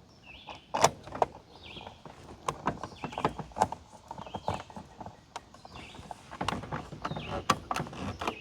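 Irregular clicks and knocks of a small cover on an RV refrigerator's reigniter being handled, fitted and screwed back on. Faint bird chirps recur behind it.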